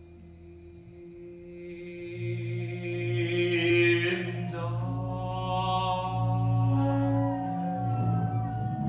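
Live chamber ensemble of bowed strings, saxophone, bass and mallet percussion holding slow, sustained droning chords over a low bass note. It starts quiet and swells louder from about two seconds in.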